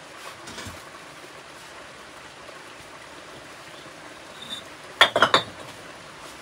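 A quick run of about four sharp clinks, hard objects striking together, a little after five seconds in, over a steady background hiss.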